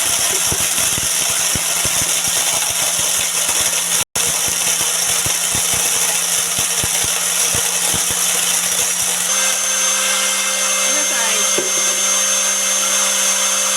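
Homemade corn mill driven by an electric angle grinder, running under load: a steady motor whine with dense crackling and knocking of dry corn kernels being crushed. About nine seconds in the crackling stops as the corn runs out, and the motor runs free with a clearer, steady whine.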